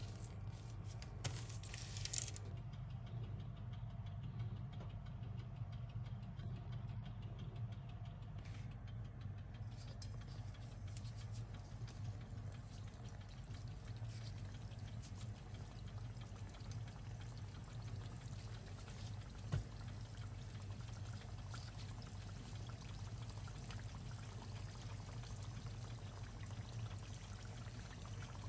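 Triangular chicken spring rolls frying in hot oil in a frying pan: a faint, steady sizzle that sets in about a third of the way through, over a low steady hum. A few light clicks near the start.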